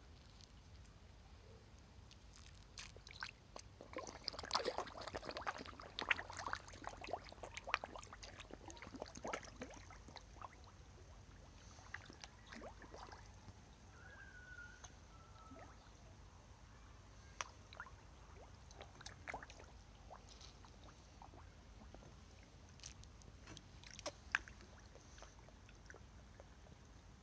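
Koi slurping and splashing at the water surface as they gulp floating food pellets: a dense patter of small wet pops and splashes for the first several seconds, then only scattered ones.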